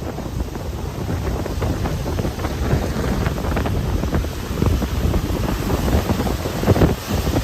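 Hurricane wind buffeting the microphone: a steady rush heaviest at the low end, swelling in gusts, with the strongest gust near the end.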